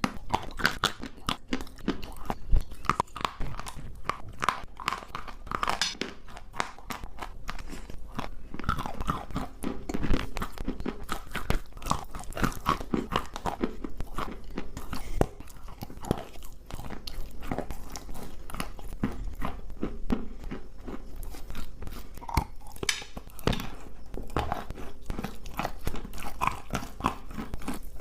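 Dry chalk with a yellow paste being bitten and chewed, a dense run of crisp crunches and crackles that goes on without a break.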